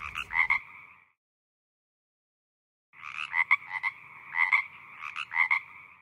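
Frog calls: rapid pulsed croaks, a short run at the start, then after about a two-second gap three more groups of croaks.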